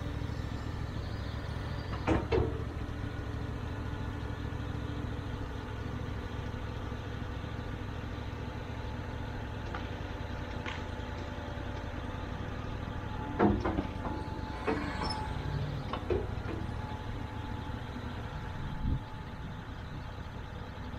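John Deere 210G excavator's diesel engine running steadily under load, with a few short knocks from the machine as it works, the loudest about two seconds in and about halfway through.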